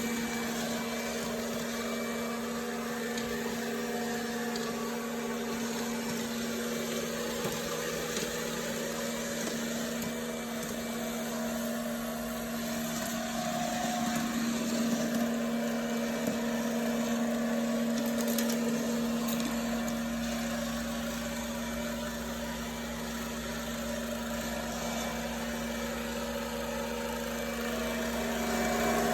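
Electrolux Pure i9 robotic vacuum cleaner running, a steady motor and fan hum that swells slightly about halfway through.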